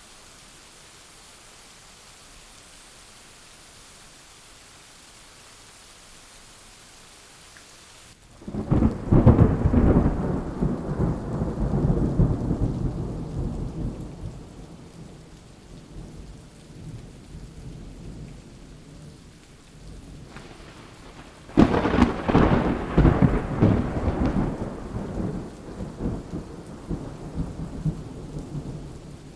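Steady rain hissing, then two rolls of thunder. The first breaks about 8 seconds in and rumbles for several seconds before fading. The second cracks loudly about 21 seconds in and keeps rumbling over the rain.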